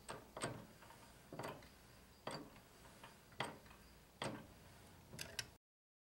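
Faint, sharp clicks about once a second as the TH400 transmission's output shaft is turned by hand, rotating the governor gear during a governor end-play check.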